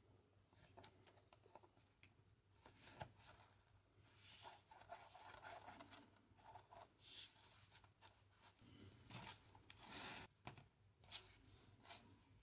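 Faint handling noise of small plastic construction-toy parts: soft scraping and rustling with scattered light clicks, a few sharper clicks near the end.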